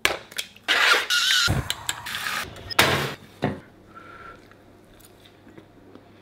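Kitchen sounds of breakfast being made and eaten: a sharp knock as an egg is cracked on a bowl, a few loud clatters and noisy bursts, one with a brief squeal, then quieter clinks of knife and fork on a plate.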